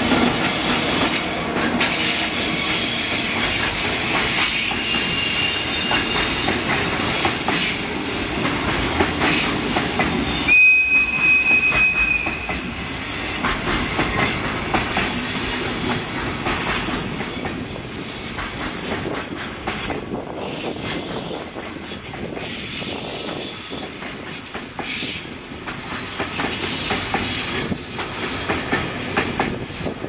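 Container freight train hauled by an EF64 electric locomotive rolling past, wheels clattering over the rails as the wagons go by. A high steady tone sounds for about a second and a half a little before the middle, and the rolling noise slowly fades toward the end.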